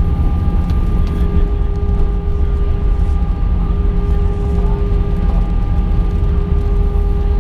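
Cabin noise inside an Airbus A319 after landing, engines running: a steady heavy low rumble with several steady whining tones above it.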